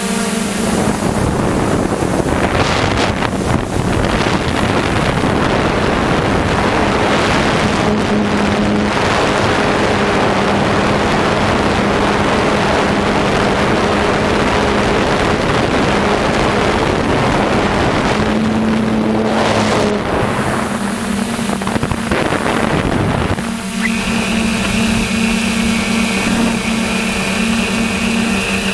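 Electric motors and propellers of a DJI F450 quadcopter humming steadily, heard from the aircraft itself, with heavy wind noise on the microphone. A few seconds before the end the wind noise drops and the motors' whine comes through clearly.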